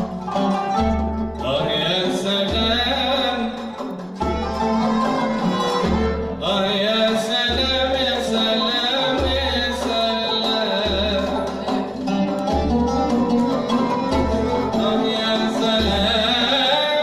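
Live Arab classical ensemble music: plucked and bowed strings with a frame drum, its low beat falling about once a second, and a voice singing over them.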